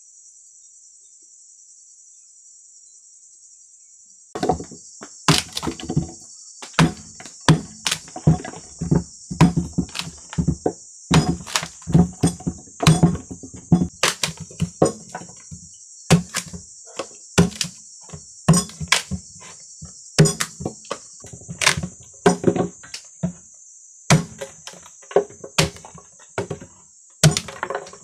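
A hatchet chopping into an upright block of wood, hewing its sides, with sharp blows coming irregularly about one to two a second from about four seconds in. A steady high chirring of insects runs behind the blows.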